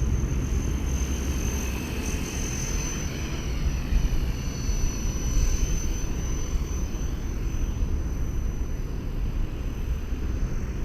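Electric Blade 230S RC helicopter flying as it is brought in toward landing: a steady high-pitched whine from the motor and rotors that drifts slightly up and down in pitch, over a low rumble.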